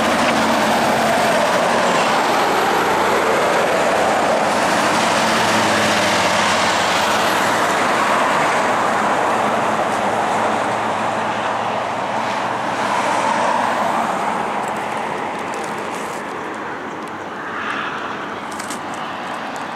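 A coach and a heavy-haulage Kenworth prime mover pulling an oversize float go past close by on the highway: a loud, steady rush of tyres with a low engine drone. It fades away over the second half.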